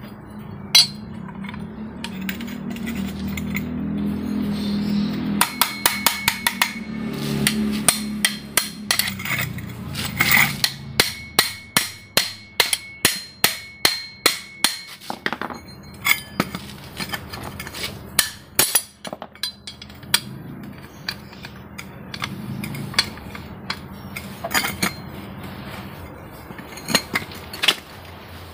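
Repeated sharp metal-on-metal strikes with a short ring, about two a second, starting about five seconds in: a hammer knocking on a tool to loosen the centre nut of a Honda Vario's CVT clutch assembly, which is held with a clutch-holder bar.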